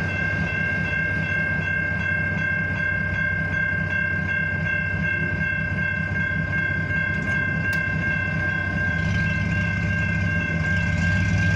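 Railroad grade-crossing warning bell ringing in a quick, steady repeat over a low rumble.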